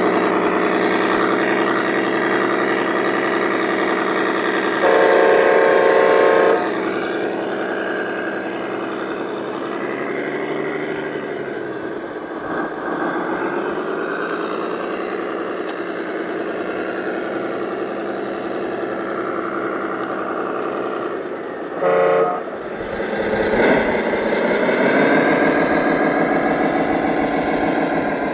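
Engine sound of RC model trucks running and revving, with a horn blast lasting about a second and a half about five seconds in and a short toot a little past twenty seconds.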